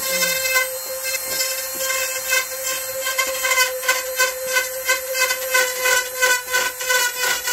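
Small corded power tool cutting wood, running with a steady high whine over hiss. From about two seconds in the sound pulses about three times a second as the cut is worked.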